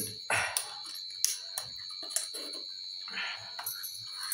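Scattered light clinks and knocks of steel dishes and a spoon being handled, over a steady high-pitched tone.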